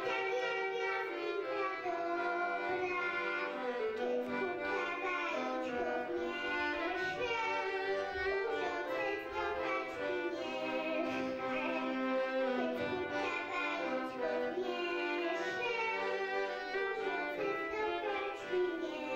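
A girl singing a song to violin and accordion accompaniment, with the violin prominent.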